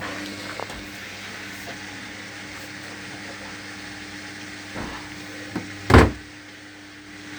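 Hoover HLW585DC washer dryer filling with water at the start of its cycle: a steady hiss of water running in over a low steady tone, with a few knocks and one loud thump about six seconds in.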